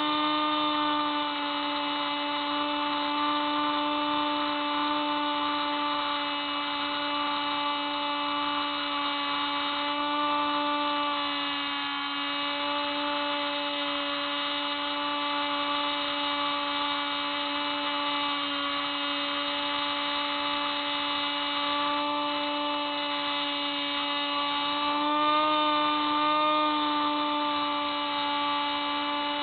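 Hubsan Spyhawk RC plane's electric motor and propeller whining steadily in flight, one pitch with a stack of overtones. It dips briefly about twelve seconds in and wavers up and down a couple of seconds before the end.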